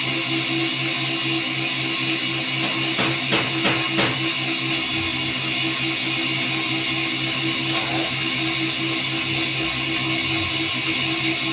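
Guitar music playing over a steady hum, with a few short clicks about three to four seconds in.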